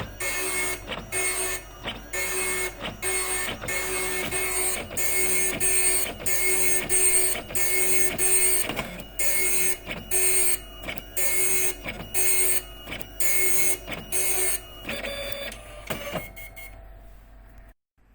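Epson dot matrix printer printing: the print head rattles in rapid short bursts, about two a second. Near the end it changes to a steadier stretch, then stops for a moment.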